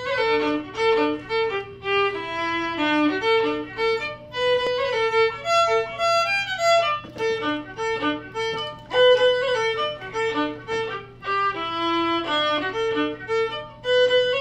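Solo fiddle playing a tune of quick, short notes with a steady pulse.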